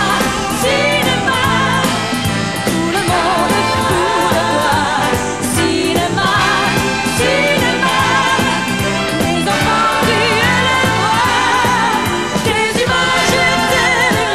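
Live pop song: a woman sings lead with vibrato, joined by a group of female backing singers, over a full band accompaniment.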